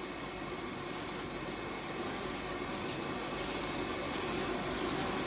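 Aluminium foil crinkling faintly a few times as it is pulled open off a cooked king crab, over a steady background hum.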